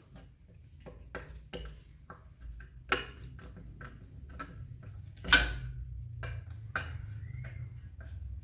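Irregular clicks and small metallic taps of a hand screwdriver turning screws in a black metal wall bracket, with one louder knock about five seconds in. A low hum sets in about the same moment.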